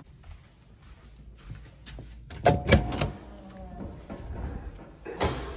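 Metal door hardware clacking: two or three loud latch clacks with a short metallic ring about two and a half seconds in, then another sharp clack near the end as a stairwell door's push bar is pressed.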